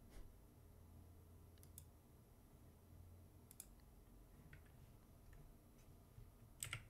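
Near silence: room tone with a few faint, scattered clicks from a computer mouse and keyboard, the loudest pair near the end.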